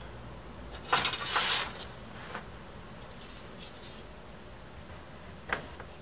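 Brief scraping and rustling as a small wooden finger brace is handled and set into place on a guitar top, loudest about a second in, followed by a few lighter taps and clicks.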